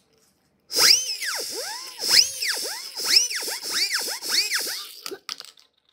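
Plastic vampire-lips toy whistle being blown: about seven whistles in a row, each rising and then falling in pitch, with a breathy hiss, ending with a few clicks near the end.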